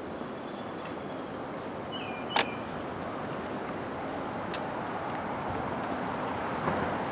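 Steady hum of a honeybee colony in an open Langstroth hive, with one sharp knock about two and a half seconds in and a lighter click a couple of seconds later as a hive tool works the wooden frames loose.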